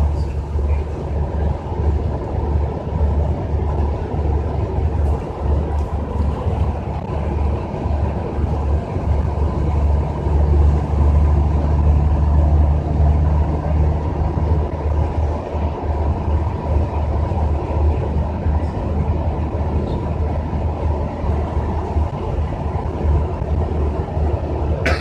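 Steady low rumble of a moving bus heard from inside, engine and road noise with no sharp events; it swells slightly around the middle.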